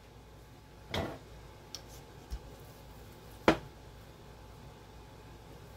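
A few separate knocks and clicks of a rolling pin and kitchen items being handled on a counter while biscuit dough is rolled out: a softer knock about a second in, two faint ticks, and a sharper, louder knock about three and a half seconds in.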